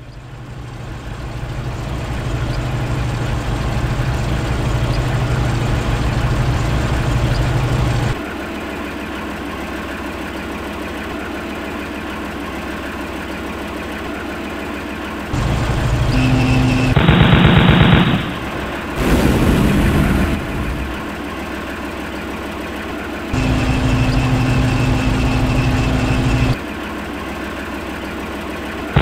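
Sound-effect tank engine running with track noise, louder for the first eight seconds and then lower, under a steady mechanical whine that comes in twice. About seventeen and nineteen seconds in come two short bursts of rapid automatic cannon fire.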